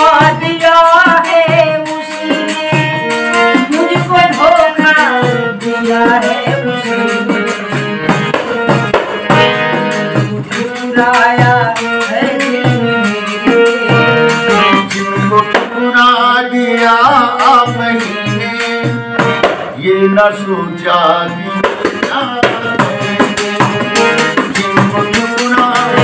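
Harmonium playing a ghazal melody in sustained reedy chords, with a small hand-held frame drum beating a steady folk rhythm under it.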